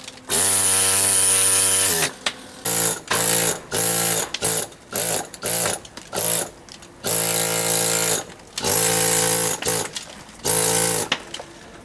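Pneumatic carving hammer driving a chisel into stone in stop-start bursts, each a steady rapid buzz: a two-second run at the start, a string of short stabs in the middle, and a few longer runs near the end.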